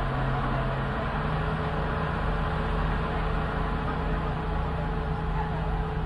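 Tata Hitachi hydraulic excavator's diesel engine running steadily, its note stepping up a little about a second in.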